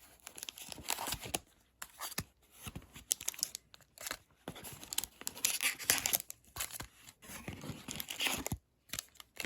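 Card-box packaging being torn and crinkled by hand, in irregular short rustles and rips with brief pauses between them.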